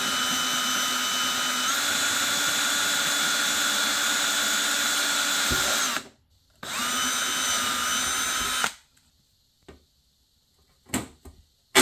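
Power drill enlarging a hole in a 5 mm plexiglass (acrylic) sheet. It runs steadily for about six seconds, stops, then runs again for about two seconds before stopping.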